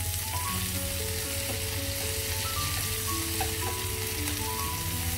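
Marinated pomfret pieces frying in coconut oil on a hot cast-iron grill pan, a steady sizzle. Soft background music with a slow melody of held notes plays along.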